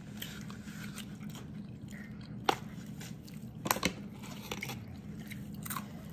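A person chewing and biting into crispy fried food, with sharp crunches about two and a half seconds in and again, louder in a quick cluster, near four seconds. A steady low hum runs underneath.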